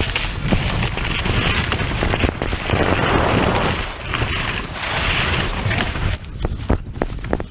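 Skis scraping and chattering over soft spring snow, with wind on the microphone. About six seconds in they run off the snow onto dry grass and dirt, and the sound thins to scattered clicks and scuffs.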